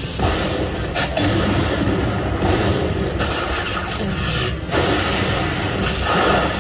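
Lightning Link poker machine sound effects during its hold-and-spin ball feature: a dense, rumbling run of game effects with several louder bursts.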